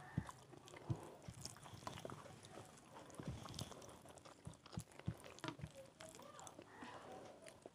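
Faint eating sounds: chewing and mouth noises with many small, irregular clicks and smacks.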